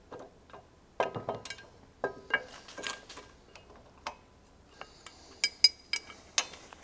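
Metal parts of a no-till drill opener clinking and knocking as the seed boot and its spring are worked into place on the opener arm and a pin is pushed through. Scattered knocks, with a quick run of sharper clinks near the end.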